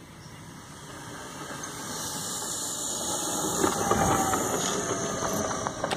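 Battery-electric RC scale model of a C-130 Hercules landing and rolling past on the runway, its four propellers and motors whining. The sound grows louder to a peak about four seconds in, then drops in pitch and fades as the model passes.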